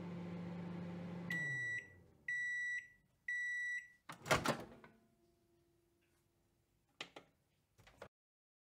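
Microwave oven running with a low hum that winds down as it stops, then three high end-of-cooking beeps about a second apart. A loud clunk as the door opens follows, then two lighter clicks near the end.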